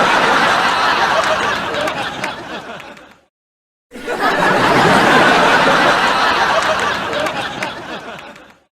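Sitcom laugh track: a studio audience laughing together, one laugh fading out about three seconds in, then after a short silence a second laugh that swells quickly and fades out near the end.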